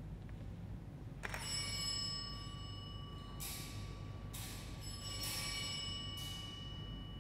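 Altar bell rung at the elevation of the host during the consecration. A sharp first strike about a second in leaves ringing tones that hang on, followed by four shimmering strokes about once a second.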